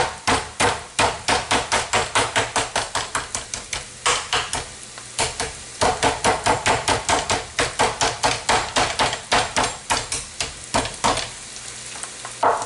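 Metal meat-tenderizing mallet pounding a butterflied pork tenderloin flat on a plastic cutting board: quick, even strikes at about four a second, with a short pause about five seconds in. The strikes stop about a second before the end.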